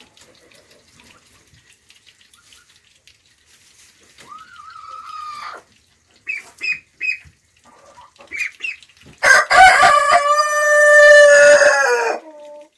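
A rooster crowing once, a long call of about three seconds in the second half. Before it come a softer call and three short, high peeps.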